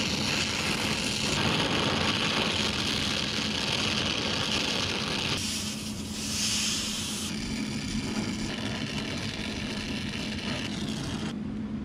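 Brazing torch flame hissing steadily as a filter drier is brazed onto copper refrigerant line. The hiss shifts briefly a little past the middle and stops abruptly near the end.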